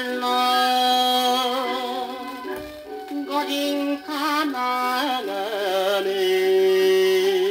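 A 1950s Japanese popular song playing from a vinyl record on a turntable. This is an instrumental passage of long held melody notes with vibrato over an accompaniment, before the vocal comes in.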